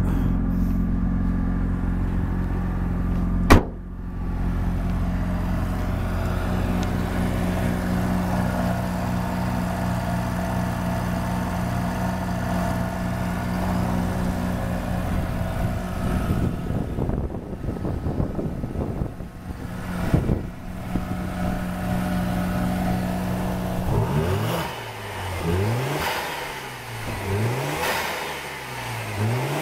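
Mazda RX-7 FD3S twin-turbo two-rotor rotary engine idling steadily, with one sharp bang about three and a half seconds in. From about 24 seconds in, the engine is revved over and over, its pitch rising and falling about every two seconds.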